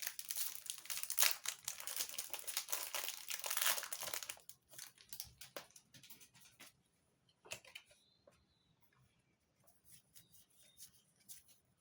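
Pokémon booster pack's foil wrapper crinkling and tearing as it is opened, dense for about the first four and a half seconds, then a scatter of light clicks and taps from handling the cards.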